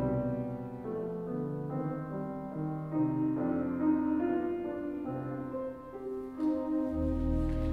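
Grand piano and church organ playing a slow piece together in long, held chords. A deep bass note comes in near the end.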